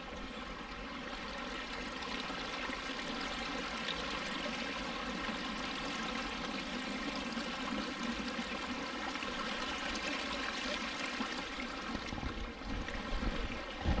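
Shallow river water rushing and splashing around stone stepping stones: a steady flowing noise.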